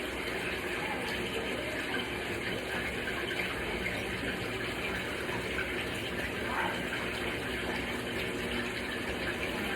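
Steady rush of water running in a Kuppet portable twin-tub washing machine, unbroken throughout.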